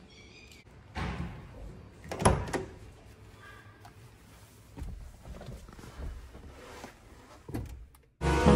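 Mahindra SUV door being handled and opened: a sharp click about two seconds in is the loudest sound, followed by quieter rustling and knocks as someone gets into the seat. Music starts just before the end.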